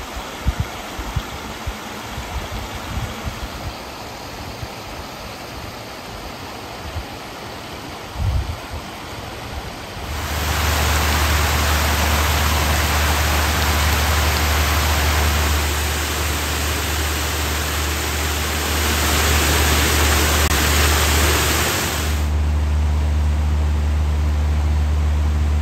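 Quieter outdoor ambience with low rumbling gusts, then about ten seconds in the loud, steady splashing of fish-farm paddlewheel aerators churning the water over a constant low motor hum. Near the end the splashing drops back while the hum goes on.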